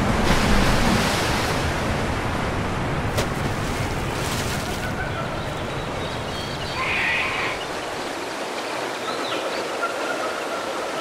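Steady rush of churning water, louder in the first second or so, with a sharp click about three seconds in.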